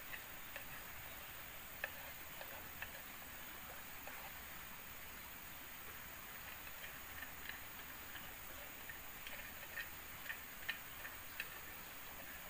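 Small irregular clicks and taps of a knife against a metal tin as vegetables are cut into it, coming more often near the end, over a steady high hiss of forest background.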